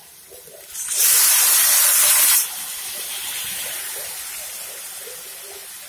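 Water poured into a kadai of hot oil and frying diced vegetables: a loud hiss of steam starts about a second in and cuts off about a second and a half later, then a steady sizzle slowly dies away. The water is added to steam the vegetables until they are cooked.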